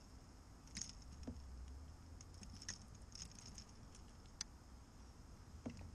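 Faint, scattered clicks and light taps of a fishing lure's hooks and landing net being handled while a hooked fish is worked free.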